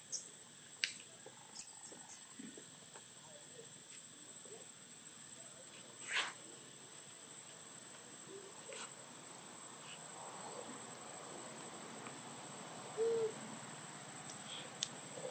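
Faint outdoor insect sound, a steady high whine. A few short sharp high squeaks come in the first two seconds, and a single short low hoot-like call comes near the end.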